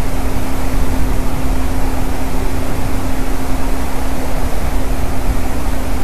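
Steady loud rushing noise from an outdoor webcam microphone, heaviest and rumbling at the low end, with a steady low hum under it; no bird calls are heard.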